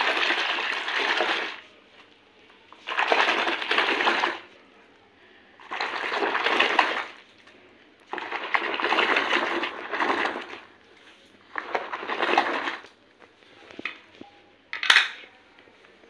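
Soapy water being swished and stirred in a plastic basin, in five bouts of a second or two each with short pauses between, and a single sharp knock near the end.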